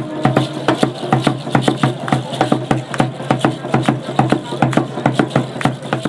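Tall hand drum struck in a fast, steady beat, with the rattles at a dancer's ankles shaking along.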